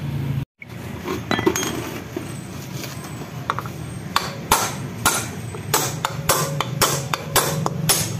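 Hammer striking a steel drift set against a bearing in a Yamaha Mio M3's final-drive gear case, knocking the bearing out for replacement. Sharp metallic blows start about halfway through and come about three a second.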